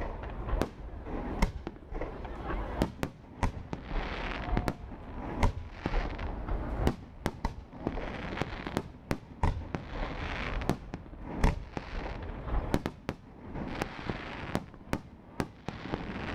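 Aerial fireworks shells bursting in quick succession: many sharp bangs, often several a second, over a continuous low rumble.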